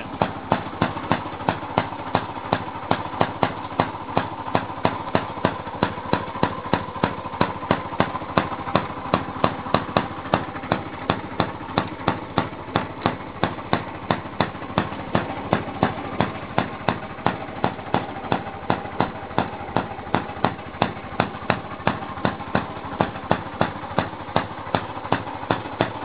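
Single-cylinder gas engine of a 1917 Maytag Model 43 washing machine running steadily and driving the washer and wringer: a regular firing beat, about three a second, over a constant mechanical hum.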